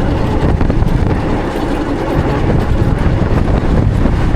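Wind rumbling loudly on the helmet or body camera's microphone, with road and traffic noise, while riding an e-bike.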